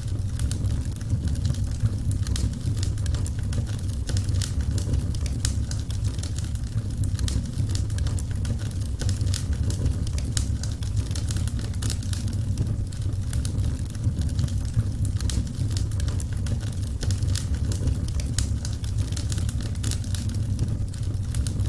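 Burning wood crackling and popping in a fireplace, with many small irregular snaps over a steady low rumble.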